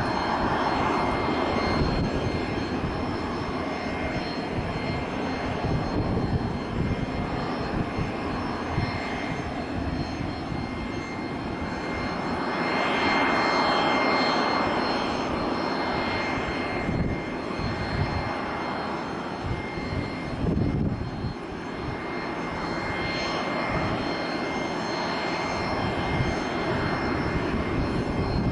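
Regional jet's turbofan engines running with a steady high whine over a broad roar that swells and fades a little about halfway through. Wind buffets the microphone with a low rumble throughout.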